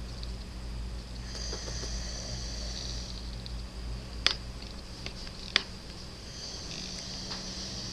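A sleeping man snoring: two long hissing breaths about five seconds apart over a steady low hum, with two sharp clicks between them.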